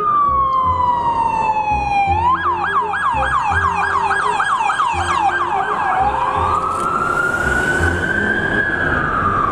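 Police car's electronic siren. It winds down in a slow wail, switches about two seconds in to a fast yelp of about four sweeps a second, then goes back to a slow rising wail that falls again near the end.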